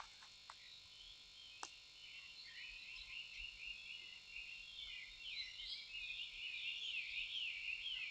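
High, continuous warbling trill of outdoor animal calls that grows louder toward the end, with two faint clicks in the first two seconds.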